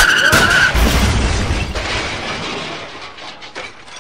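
Car skid-and-crash sound effect: a tire squeal ends under a second in and gives way to a boom and shattering, clattering debris that slowly fade.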